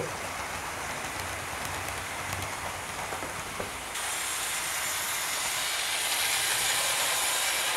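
OO gauge model train, a Wrenn West Country class locomotive hauling Southern coaches, running along the track: a steady whirring hiss of motor and wheels with a few faint clicks from the rails. The sound gets a little louder and brighter about four seconds in.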